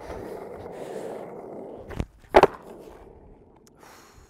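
Skateboard wheels rolling on smooth concrete, then a sharp pop of the tail about two seconds in and a louder clack of the board landing a moment later. The rolling then fades away.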